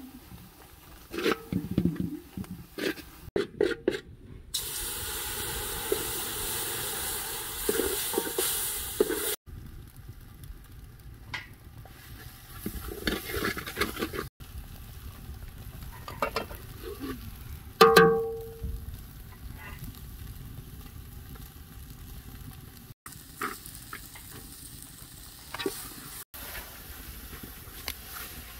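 A metal spoon scraping and knocking in an aluminium cooking pot while stirring, a few seconds of steady sizzling hiss that cuts off sharply, then scattered knocks of hands and bowls at the pot and one loud ringing metal clang about two-thirds of the way in.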